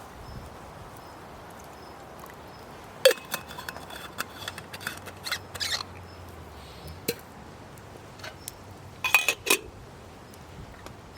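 Camp cookware and utensils being handled, clinking and knocking: one sharp knock about three seconds in, a run of lighter clinks over the next few seconds, and a quick cluster of clinks near the end.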